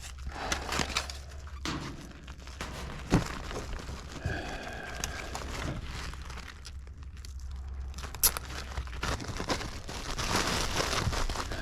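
Crinkling and rustling of material being handled, with a couple of sharp knocks and a brief high tone about four seconds in, over a low steady hum.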